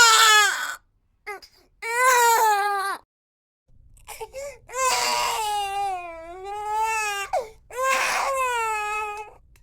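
Infant crying in a string of about four wailing cries, each sliding down in pitch, with short gasps and breaks for breath between them; the longest cry, in the middle, wavers up and down.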